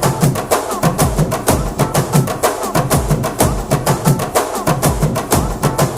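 Background music carried by fast, steady drum and percussion beats, several strikes a second.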